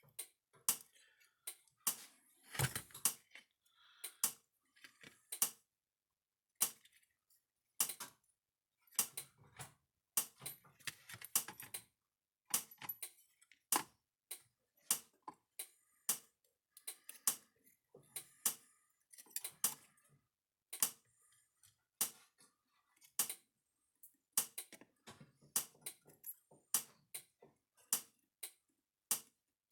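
Irregular sharp clicks and taps of small tools and parts being handled on a workbench, sometimes several a second, while an electric fence charger's circuit board is being worked on for a bulb change.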